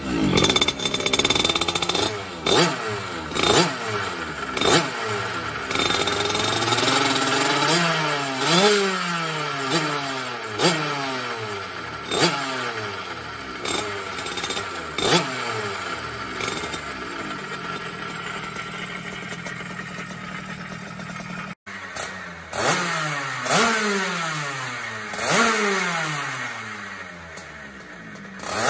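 Puch X30 moped's tuned 70cc two-stroke engine with a Stage6 expansion exhaust, revved on the stand in repeated sharp blips, each rising fast and falling back to idle, about one every second or so. There is a calmer stretch of idling past the middle, and a brief break before the blips resume.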